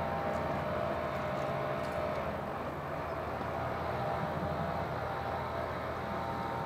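Electric train on the line near a closed level crossing: a steady rumble and hum with a few held tones, a little stronger in the first couple of seconds.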